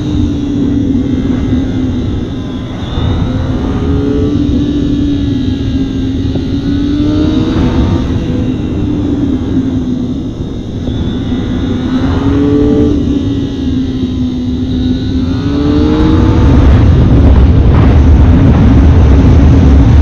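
Kawasaki ZX-25R's 250 cc inline-four running at high revs while ridden, its pitch wavering with the throttle and rising briefly four times as it is opened up. Wind on the microphone swells to a loud rush over the last few seconds as speed builds.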